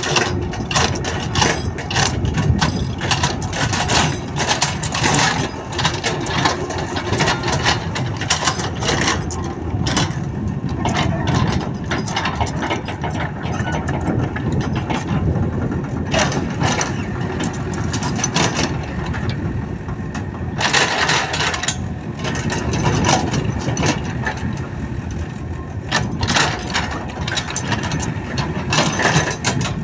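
Komatsu crawler excavator's diesel engine running under working load, with frequent clanks and rattles as the bucket scrapes and spreads loose soil and the machine creeps forward on its tracks.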